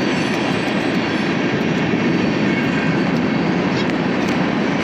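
Freight cars of a CSX train rolling past at a crossing, a steady noise of steel wheels on the rails.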